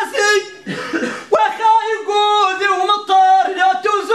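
A man singing unaccompanied, holding long notes that step and bend between a few pitches, with a short noisy break about a second in.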